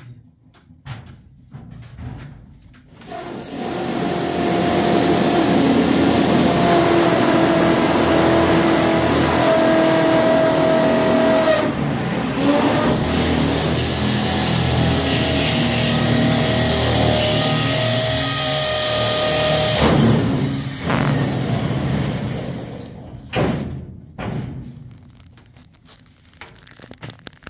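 A power tool running in a long stretch on a galvanised sheet-metal cabinet box, starting about three seconds in, dropping out briefly midway and stopping a few seconds before the end. Scattered knocks and handling noises come before and after it.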